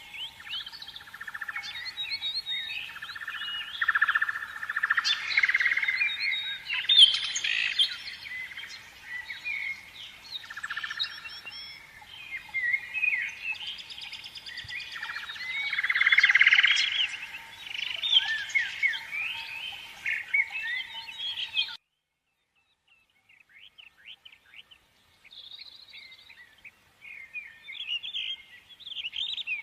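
Many small birds chirping and twittering together in a dense, busy chorus. It cuts off abruptly about three-quarters of the way through, and after a short gap sparser chirps come back.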